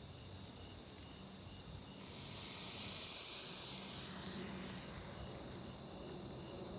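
Thermite (iron oxide and aluminium powder) burning with a loud hiss that rushes up about two seconds in, is strongest a second or so later, then dies back to a softer hiss.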